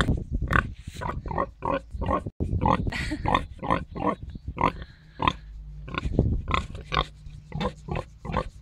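A sow grunting in a rapid run of short grunts, about three a second, close up. These are the contented grunts of a pig enjoying a scratch.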